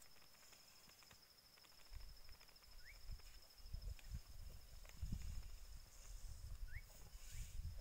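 Faint sounds of an African bull elephant grazing: scattered crackling clicks as grass is pulled, and low muffled thuds and rumbles from about two seconds in. A steady high-pitched buzz runs underneath, and two short rising chirps sound, about four seconds apart.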